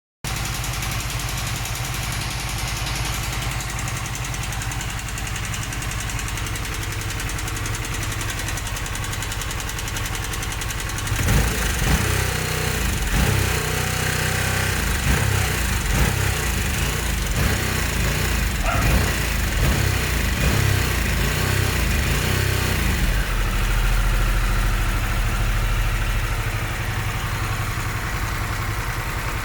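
Harley-Davidson Sportster S's Revolution Max 1250T V-twin idling with a ticking/knocking sound, which the owner reports comes on after the bike has idled for a while. About eleven seconds in, the engine note turns louder and uneven for around twelve seconds, then settles back to a steady idle.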